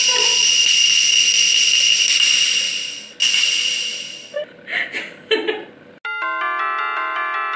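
Edited-in comedy sound effects. First comes a bright, high ringing shimmer with a fast flutter, which gives way about three seconds in. From about six seconds in, a doorbell-like chime jingle of several notes rings out.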